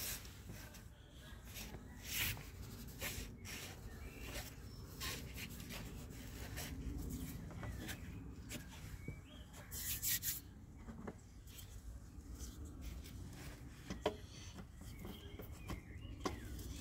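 Hands handling a car throttle body against a plastic intake manifold: light knocks, clicks and handling noises, the clearest about two, ten and fourteen seconds in, over a faint low rumble.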